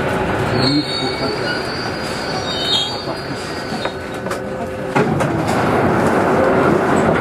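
Paris Métro MP05 rubber-tyred driverless train running, heard from inside: a steady rumble with a thin high wheel squeal from about one to three seconds in, and a sharp knock about five seconds in.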